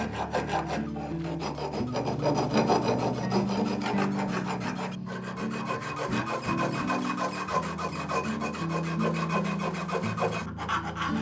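Hand-held flat metal file scraping back and forth over the steel edge of a Wisent axe head, smoothing the curved beard cut-out. It goes in repeated strokes, with brief breaks about five seconds in and near the end.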